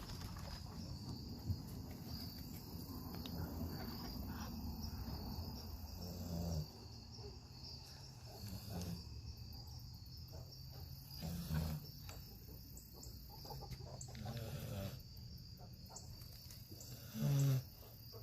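A sleeping dog snoring in slow, regular breaths, about one snore every three seconds, the loudest near the end. A steady high insect trill runs behind it.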